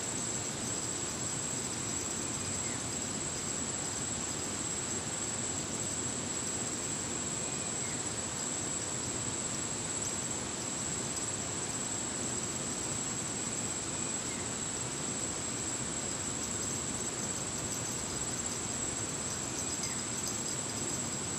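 Steady riverside ambience: one continuous high-pitched insect tone over the even rush of a fast-flowing river.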